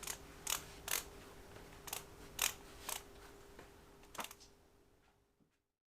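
About seven short, sharp clicks and light knocks at uneven intervals over a faint steady hum, then the sound cuts off to silence shortly before the end.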